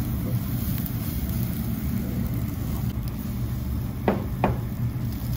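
Steady low rumble of a tabletop charcoal yakiniku grill with its built-in exhaust drawing air, skirt steak cooking on the wire mesh. Two short clinks come about four seconds in.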